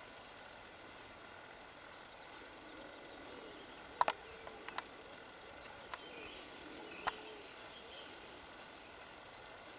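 Wild boar sows and piglets at a bait site: a quick cluster of sharp clicks and snaps about four seconds in, then single ones near six and seven seconds, over a faint steady outdoor background.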